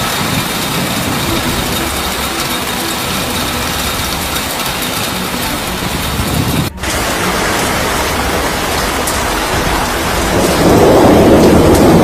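A steady, noisy din with a faint engine hum from an excavator at a demolition site. About two-thirds in it cuts abruptly to a heavy storm downpour, which grows louder near the end.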